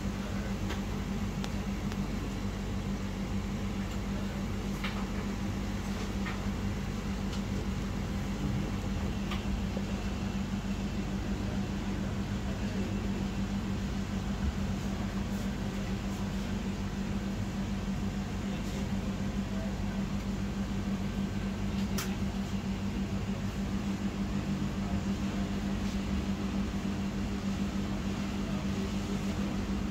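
A steady, fan-like machine hum, with a few faint ticks scattered through it.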